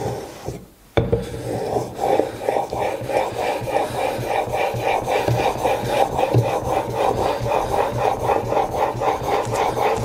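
Steel wood chisel honed back and forth on a wet 1000-grit Cerax Japanese water stone in a honing guide: a rhythmic scraping of about three strokes a second, starting about a second in.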